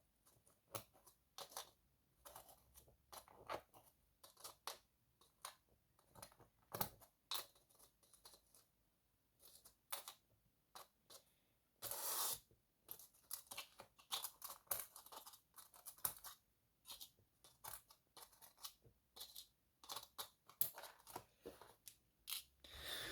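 Faint, irregular small clicks and scrapes of metal tools probing the pin chambers of a gutted pin tumbler lock to get out pins and a spring that are stuck inside, with a longer scratchy scrape about halfway through.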